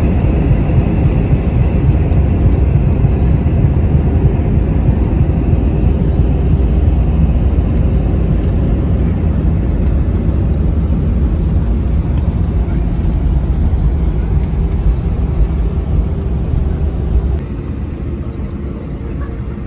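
Steady loud rumble of a jet airliner heard from inside the cabin, with a high whine that fades away over the first few seconds. The level drops suddenly near the end.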